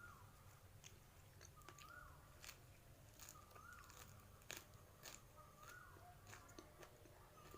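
A person chewing crunchy food, faint crisp crunches and clicks scattered irregularly throughout. A short rising-then-falling chirp repeats about every two seconds.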